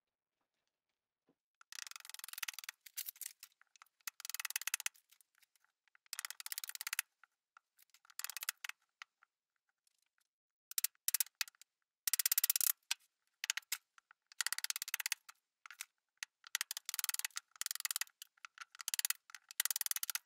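A green birch log being worked with hand tools: bursts of rapid scraping and cutting strokes as the bark is stripped and the wood is hewn. Each burst lasts a second or two, with short pauses between.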